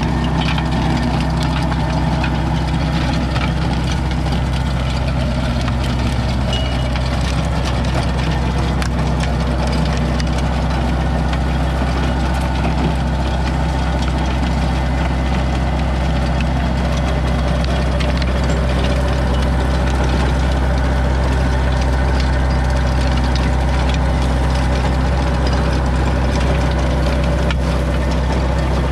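Case DX40 compact tractor's diesel engine running at a steady speed, powering a rear-mounted rototiller.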